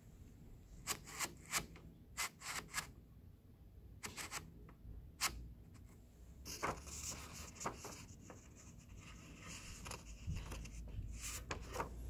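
Handling of a typed sheet of paper and an old typewriter. A run of light clicks and knocks comes first, then a rustle of paper rubbing about halfway through, then a few more clicks near the end.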